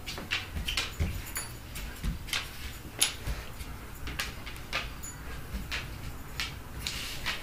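A German shepherd and a cat play-fighting on a hardwood floor and rug: irregular short scuffs and scrapes of paws and bodies, with a sharper knock about three seconds in.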